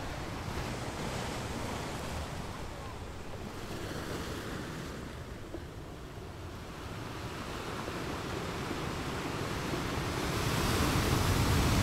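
Small sea waves washing and splashing against the water's edge, with wind buffeting the microphone; the splashing grows louder near the end.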